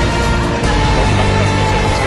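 Loud background music with held notes.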